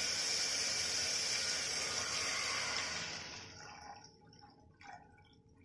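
Ginger-garlic paste and whole spices sizzling in hot ghee and oil in an aluminium pressure cooker, then coconut milk poured in; the sizzling dies away about three seconds in as the liquid cools the pan, leaving only faint liquid sounds.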